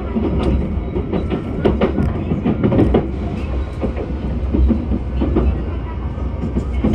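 Running noise inside a JR West 273 series limited express electric train: a steady low rumble, with the wheels clicking sharply over rail joints every second or so.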